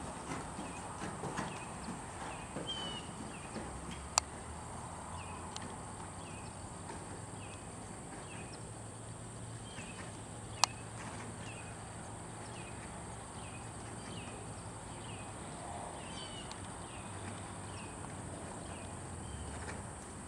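Ridden horse's hoofbeats on arena sand, with a short high chirp repeating steadily through most of it. Two sharp clicks, one about four seconds in and another about ten seconds in, are the loudest sounds.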